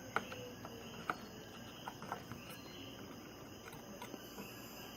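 A few light clicks and taps of a RAM stick being handled and lined up in a motherboard memory slot, over a steady high-pitched chirring of crickets in the background.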